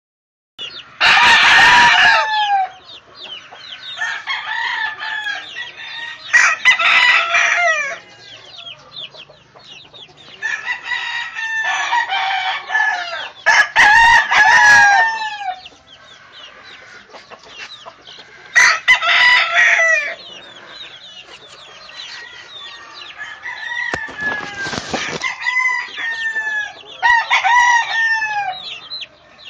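Flock of young chickens calling and clucking: loud bursts of many short, falling calls every few seconds, with quieter clucking between them.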